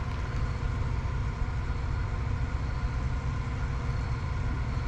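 Car engine idling or creeping at low speed, a steady low rumble.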